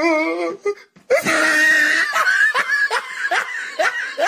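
A person laughing hard: a wavering, drawn-out voiced cry at the start, then, after a brief pause about a second in, a long run of rapid laughing bursts, about three a second.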